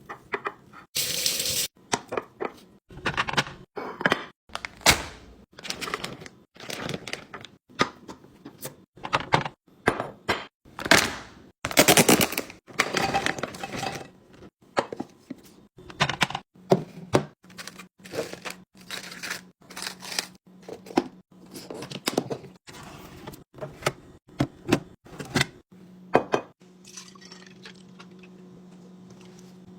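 Handling of food containers and packaging: a busy run of clicks, knocks, crinkles and set-down taps as items are unpacked and placed. A faint steady low hum comes in from about halfway.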